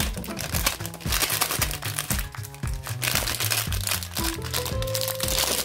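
Foil wrapping crinkling as it is unwrapped by hand, over background music with a steady bass line.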